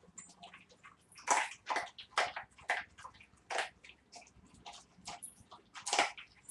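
Dogs chewing a raw chicken carcass: irregular sharp crunches and cracks of bone between wetter chewing, loudest about a second in, near three and a half seconds and near six seconds.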